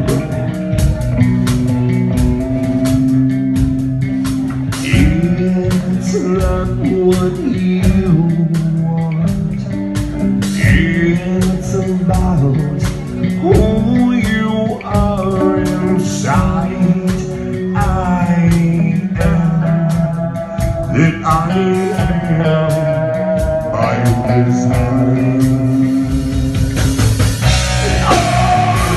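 A band playing a blues-rock song, with guitar and a singer over a steady beat.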